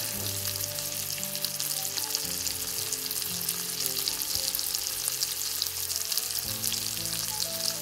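Raw bacon slices sizzling in hot oil in a nonstick frying pan, a steady even crackle as they begin to fry.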